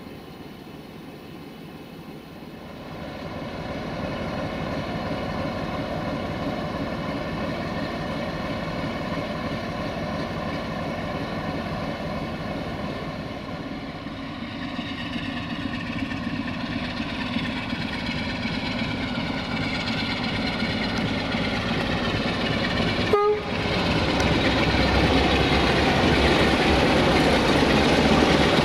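Two 060-DA diesel-electric locomotives with Sulzer engines running as they come up and pass close by, the engine sound building steadily. There is an abrupt break about two-thirds of the way through, after which the sound is louder.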